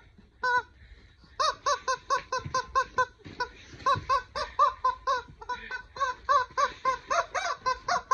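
Yellow rubber chicken squeaky toy being squeezed over and over: one short squeak about half a second in, then a fast run of short squawking squeaks, about three a second, from about a second and a half in.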